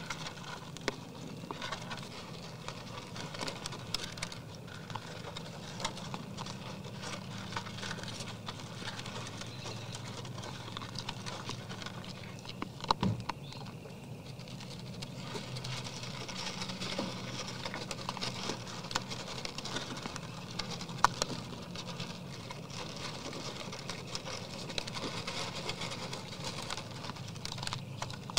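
Whitetail deer eating feed from a tub feeder: irregular small crunches and clicks of muzzles and feed in the tub, with a sharper knock about 13 seconds in and another about 21 seconds in. A steady low hum runs underneath.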